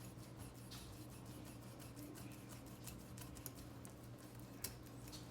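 Faint crisp ticking and scraping of a knife cutting into a whole fish behind the fin, with one sharper click near the end, over a steady low hum.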